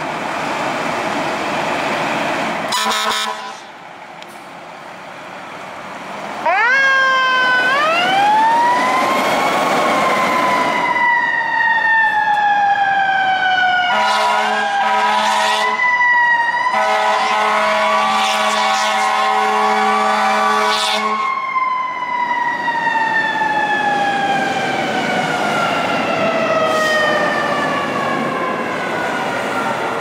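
Seagrave fire engine responding: a brief blast about three seconds in, then the siren winds up with a few quick rises to its peak. Two long air-horn blasts sound over it, after which the siren slowly falls in pitch as it winds down.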